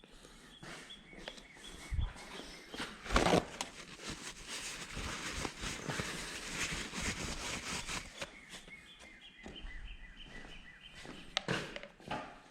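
Handling noise from working on motorcycle hand-guard parts: rustling with scattered light knocks, the sharpest about two, three and eleven seconds in. Thin high chirps sound near the start and again near the end.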